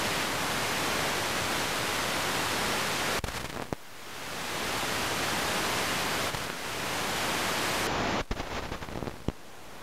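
Radio static from an RTL-SDR receiver tuned to 124 MHz: a steady hiss with a brief dip about three seconds in and a few sharp clicks near the end. The static and clicks are lightning strikes picked up as radio noise.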